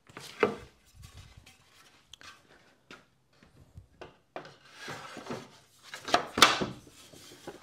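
A pre-finished wooden panel being handled and slid down into the grooves of a wooden bed frame: wood rubbing and scraping against wood, a sharp knock about half a second in, and the loudest clunks a little after six seconds as the panel drops into place.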